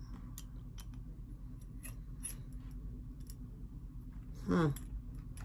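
Light, scattered clicks and ticks of thin sheet-metal pieces handled and fitted together: the bladed spinner of a metal tea light holder. A short hum of a voice comes about four and a half seconds in.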